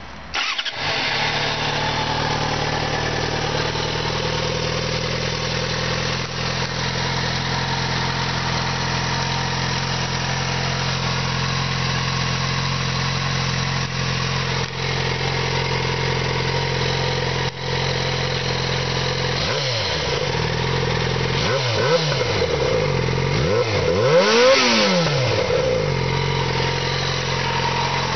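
2013 Yamaha XJ6 Diversion's 600 cc inline-four starting up through its stock exhaust just after the start, then idling steadily. Near the end the throttle is blipped three times, each a quick rise and fall in engine pitch, the last the highest and loudest.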